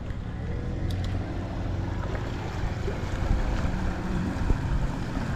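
Steady low hum of a motor running, with wind noise on the microphone.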